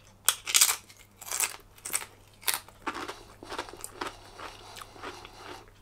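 A person chewing crunchy food with their mouth, several loud crunches in the first couple of seconds, then softer, irregular chewing.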